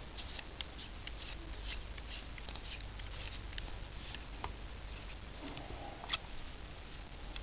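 Scattered light clicks and faint scratching, as of a small object being handled, with one sharper click about six seconds in, over a steady low hum.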